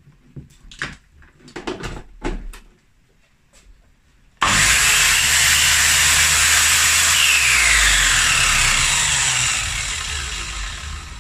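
A few handling clicks and knocks, then the MacAllister MMIS210C compound mitre saw's motor switches on abruptly about four seconds in and runs really loud and steady with the blade spinning free, no cut. Near the end it begins to wind down.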